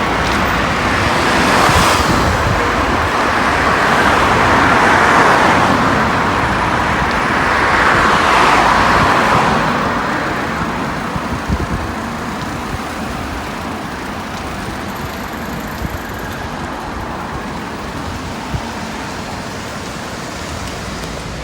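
Road traffic noise, with a few vehicles passing one after another in the first half, then a quieter, steady background of traffic.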